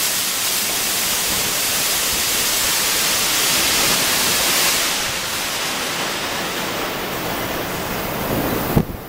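Electric arc furnace in operation: loud, steady rushing noise that turns duller about halfway through, with a sharp knock near the end.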